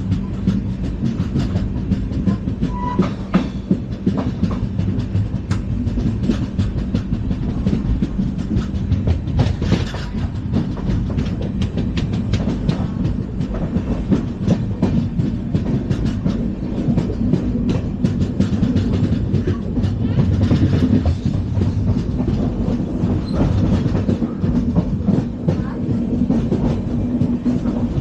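LHB passenger coaches running at speed on the track: a steady rumble and rattle with frequent clicks of the wheels over rail joints.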